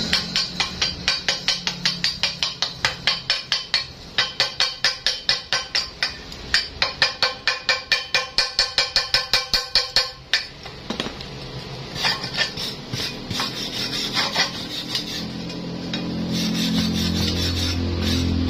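Hammer chipping slag off a fresh weld bead on a thick steel plate: rapid ringing metal taps, about four a second, in three runs, then a few scattered blows. About three seconds before the end a power wire brush starts up and runs steadily against the weld, with a low motor hum.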